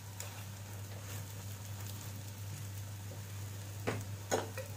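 Egg omelette frying gently in a nonstick pan, a faint steady sizzle, with two light clicks near the end.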